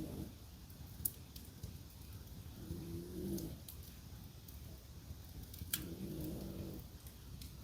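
French bulldog snoring, one drawn-out snore about every three seconds, twice in full. A wood fire crackles, with a couple of sharp pops.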